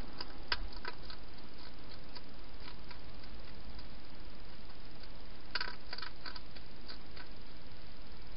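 Hedgehog eating at its bowls inside a plastic feeding box: two short runs of small clicks and crunches, one just after the start and one about two-thirds of the way in, over a steady hiss.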